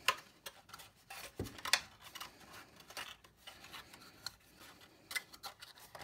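White pre-scored card being folded and pressed into a box by hand: scattered short crackles, taps and rubs of card as the sides are pushed in and creased, with a soft thump about a second and a half in.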